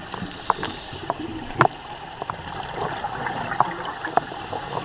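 Underwater sound picked up by a diver's camera: a steady watery hiss with scattered sharp clicks and crackles.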